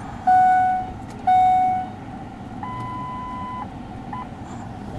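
Mercury Mountaineer's dashboard warning chime sounding twice, a second apart, each note fading away; then a steady, higher beep lasting about a second, and a short beep a little later.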